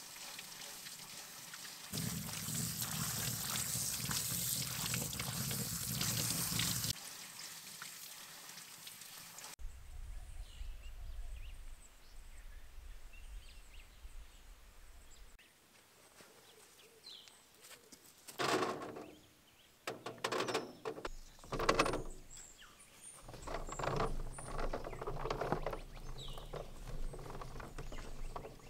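A tap running steadily into a sink for a few seconds, then faint bird chirps over a low rumble. From about two-thirds of the way in, hands turn cacao beans on a wire-mesh drying rack in a series of rustling, rattling bursts.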